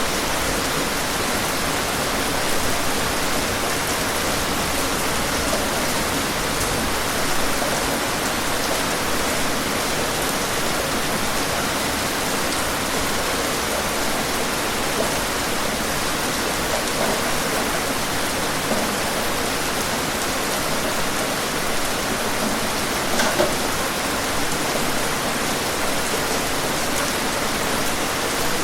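Steady, even rain falling and hitting surfaces outdoors, with a few slightly louder individual drops or splashes.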